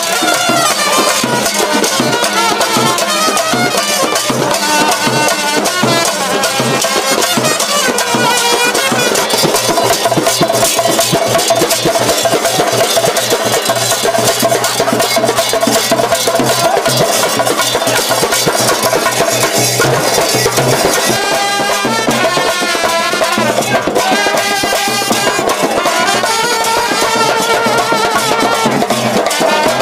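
Brass band music: trumpets playing a folk melody in unison over a steady, loud drum beat.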